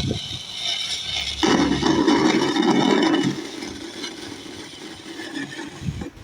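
Zebronics 4.1 home theatre speakers giving out a rushing static hiss like an untuned FM radio instead of Bluetooth audio, the unit's fault. The rush grows louder about a second and a half in, then fades after about three seconds.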